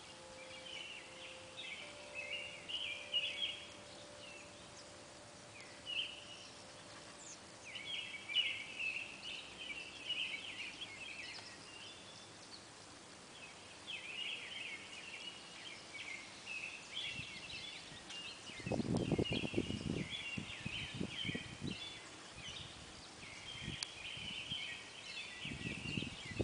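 Small birds chirping and twittering in short bursts throughout. Low rumbling bursts break in about two-thirds of the way through and again near the end.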